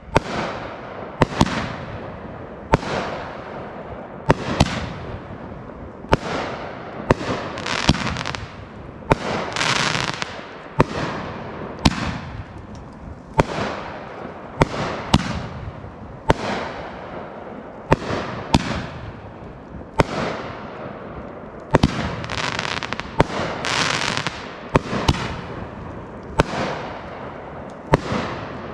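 A 16-shot, 500-gram consumer firework cake firing, each shot bursting into two breaks. Sharp bangs come one after another, roughly one to two a second, each trailing off in a fading hiss.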